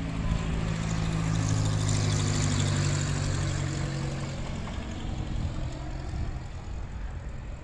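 Small propeller airplane passing low overhead: a steady engine drone with a rushing sound that is loudest a couple of seconds in, then fades as the plane moves away.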